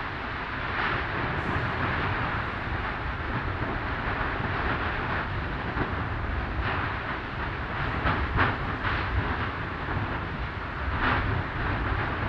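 Erupting volcano with lava fountaining at the vent: a steady deep rumble with short, louder bursts of gushing every few seconds.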